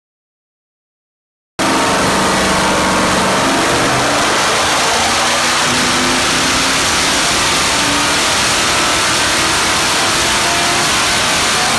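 Blueprint 383 stroker small-block Chevy V8 running hard on an engine dyno, naturally aspirated without nitrous. It cuts in suddenly after about a second and a half of silence, and its pitch climbs slowly as the revs rise through the pull.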